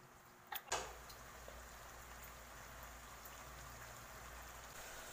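Pork, pineapple and onion simmering in a pineapple-juice and soy-sauce braise in a nonstick wok: a faint, steady bubbling hiss. Two sharp clicks of the spatula on the pan come just before the simmering sets in, under a second in.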